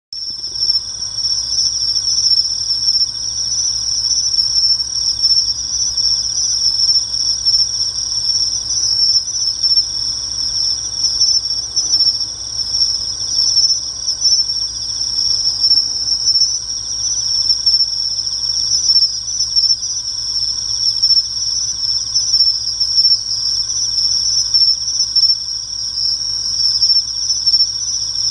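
Crickets chirping in a continuous, steady high-pitched trill: an autumn insect chorus.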